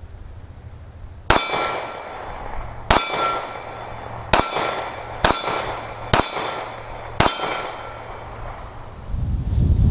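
Six shots from a Kahr CM9 9mm pocket pistol, about one to one and a half seconds apart, each followed by the ringing of a struck steel target.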